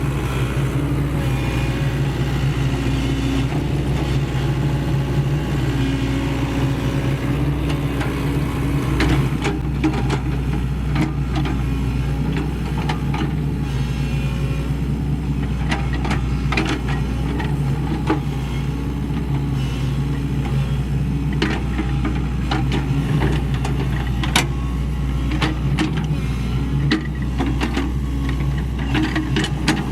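Sany SY75C excavator's diesel engine running steadily while working, with scattered short knocks and clanks from the machine and its bucket.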